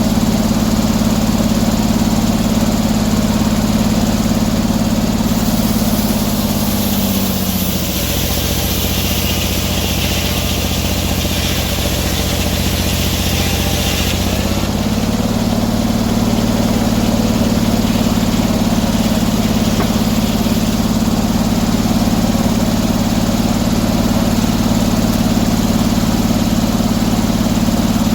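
Sawmill engine running steadily. About six seconds in, its pitch sags as it takes a cut under load, with a hissing of the saw in the wood. A few seconds later it recovers to its earlier speed as the cut ends.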